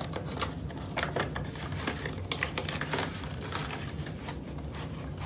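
Paper banknotes and the plastic envelope of a cash-budget binder rustling and crinkling as bills are tucked in and the envelope is closed, with many scattered light ticks.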